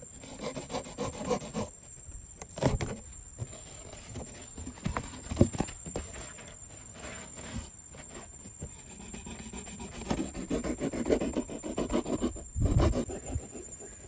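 A box cutter sawing through corrugated cardboard in quick rasping strokes, in two runs, one at the start and one in the last few seconds, with a few sharp knocks from handling the box, the loudest about five seconds in.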